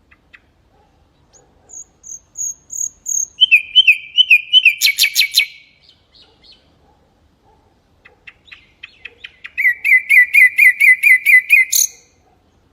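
Mangrove whistler singing two phrases. The first is a run of high whistled notes that drops to lower, rising-and-falling notes and ends in a fast, loud trill. The second, a few seconds later, starts with soft ticks and becomes a quick series of about ten repeated notes, ending in a sharp upward note.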